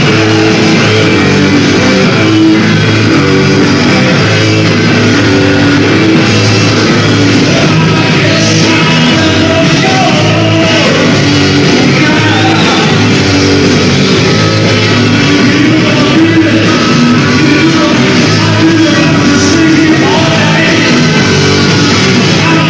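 Hard rock band playing live: electric guitars, bass guitar and drums, loud and dense without a break.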